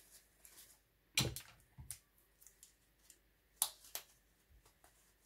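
A few sharp clicks and knocks of small objects being handled and set down, the loudest about a second in and again about three and a half seconds in, with softer ones just after each.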